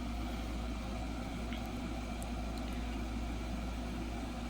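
A steady low background hum with an even hiss, and a few faint ticks.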